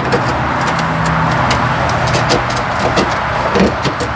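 Steady low mechanical hum over a constant noise bed, with scattered light clicks and taps as a plastic cap is handled and set into the hole.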